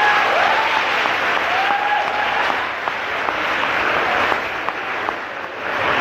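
Audience applauding in a hall, the clapping thinning out and growing quieter toward the end.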